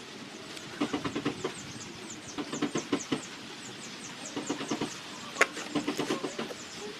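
Butter slime being kneaded and squeezed by hand, giving wet squishing clicks in quick bursts of several a second, with short pauses between bursts.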